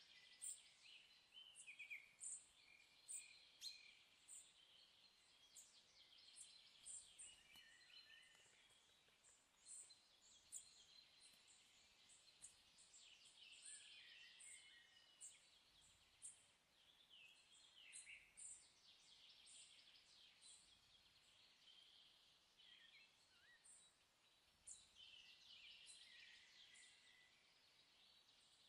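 Faint birds chirping and twittering over a light hiss, with short, quick calls repeating throughout.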